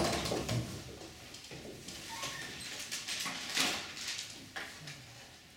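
Applause from a small audience tailing off, then a quiet room with scattered soft knocks and paper handling as the speaker sets up at the desk, and a brief faint squeak a couple of seconds in.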